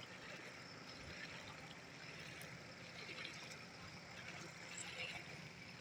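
Faint, steady flow of floodwater streaming and trickling.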